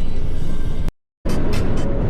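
Music over the steady road noise of a moving car, cut off abruptly to silence for about a third of a second about a second in, then resuming.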